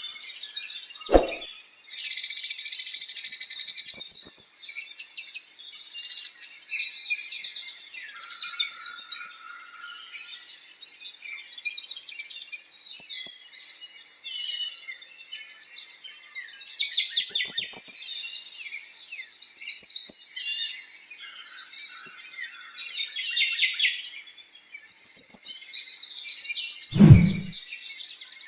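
Many small birds chirping and twittering at once, with a dense, continuous chorus of high calls. A short low thump comes about a second in, and a louder one near the end.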